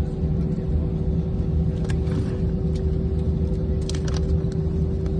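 Cabin noise of an Airbus A320 rolling on the ground just after landing: a steady low rumble from the engines and wheels with a constant engine hum. A few light clicks or rattles come through, the clearest about four seconds in.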